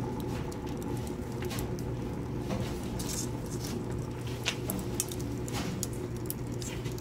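Split wood kindling burning in the feed tube of a rocket mass heater, crackling and popping irregularly over a steady low rumble.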